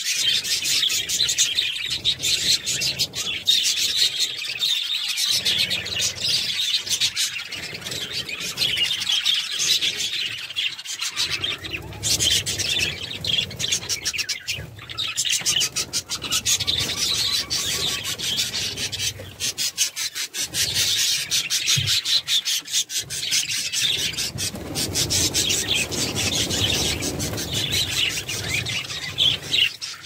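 A flock of budgerigars chattering, a dense, unbroken mass of chirps and rapid clicks. Low rubbing noise comes and goes underneath.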